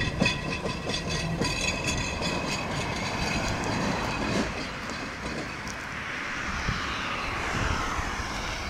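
Appenzeller Bahnen electric train pulling away and receding along the track. The wheels click over the rails, with a high steady whine in the first few seconds and a falling whine near the end as the train fades.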